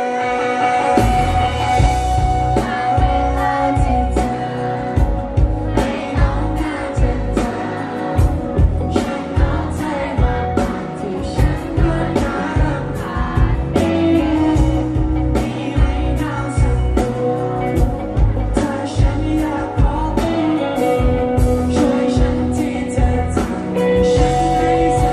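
Live band playing a song: a male singer with electric guitar over a steady beat.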